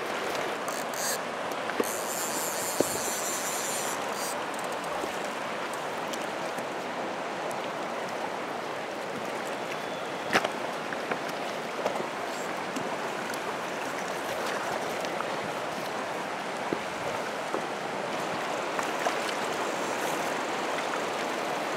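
Shallow river running over a rocky bed: a steady rushing of water, with a few short sharp clicks or knocks over it, the loudest about ten seconds in.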